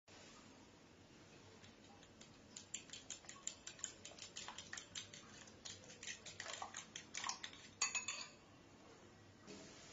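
A metal fork beating eggs and cornflour in a ceramic bowl: a fast, irregular run of clinks and scrapes against the bowl, starting a couple of seconds in and stopping about two seconds before the end.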